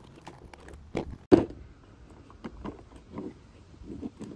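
Sharp clicks and snaps of a lithium-ion tool battery pack being cut and pried apart with hand tools. The loudest snap comes a little over a second in, and lighter clicks follow.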